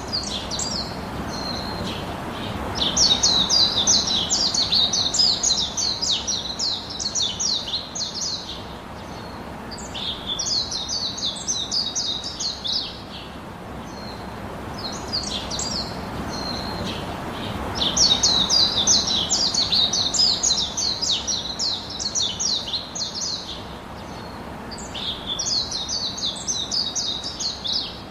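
Birds chirping in four bouts of rapid, high-pitched chattering, each lasting a few seconds, over a steady background hiss.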